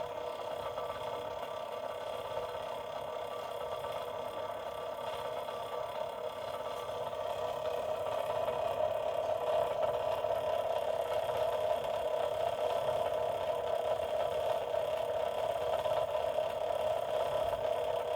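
Small electric motor running steadily with a whir, growing louder about halfway through.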